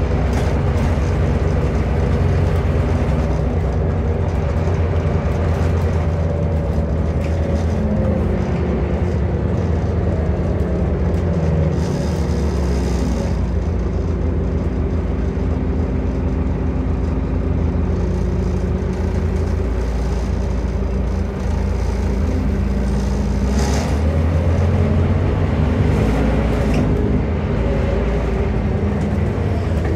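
Heard from inside the passenger saloon, a Scania N230UD OmniCity double-decker bus is under way. Its Scania DC09 nine-litre five-cylinder diesel runs steadily with road noise, and the engine note shifts as the bus changes speed. There are two brief hisses, about twelve and twenty-four seconds in.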